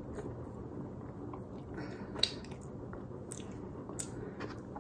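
Quiet mouth sounds of chewing spaghetti carbonara, with a few faint clicks, the sharpest a little over two seconds in.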